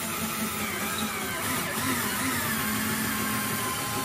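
Black+Decker cordless drill running steadily as it drills a pilot hole through drywall into a wood stud, its motor pitch wavering slightly under load.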